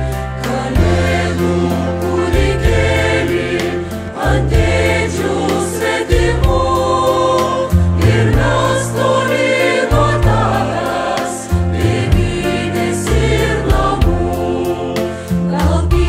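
Chamber choir singing a Christmas song in Lithuanian.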